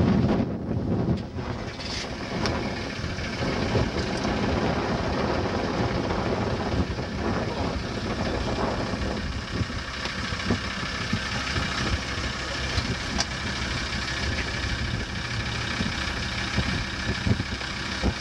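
A roller starter spins the rear wheel of a sprint motorcycle and turns its engine over steadily without it firing. The bike is being turned to get oil round the engine, and a lack of spark keeps it from starting.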